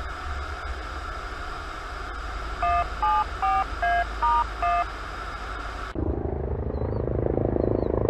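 A string of six short beeps, each sounding two pitches at once and changing pitch from one to the next, over a steady low engine noise: radio dispatch alert tones sending an ambulance crew to a call. About six seconds in the sound cuts to a low rumble that keeps building, a helicopter approaching.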